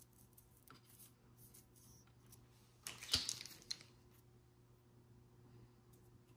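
Plastic measuring spoons on a ring clicking and rattling as they are picked up, in one brief cluster about three seconds in, with faint handling clicks around it. A low steady hum runs underneath.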